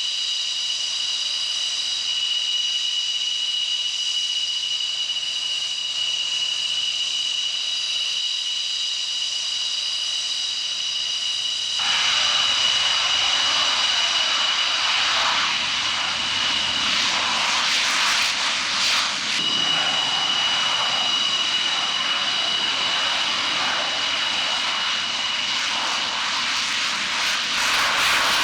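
Military jet engine running with a steady high-pitched whine; about twelve seconds in a loud rushing noise comes in under the whine and the engine stays louder to the end.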